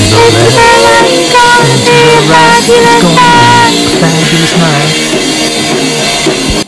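Loud rock music on electric guitar, bass guitar and drum kit, with a melody line over a bass line. It stops abruptly just before the end.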